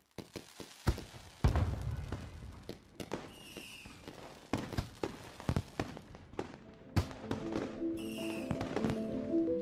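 Fireworks popping and crackling, with a short whistle twice. Lo-fi music comes in about seven seconds in.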